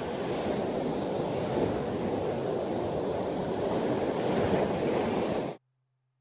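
Ocean surf breaking on a beach, a steady rushing wash of waves with wind, that cuts off abruptly about five and a half seconds in.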